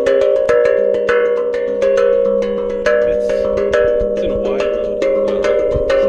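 Kaizen steel tongue drum played with the fingers: a quick run of struck notes, several a second, each ringing on and overlapping the next.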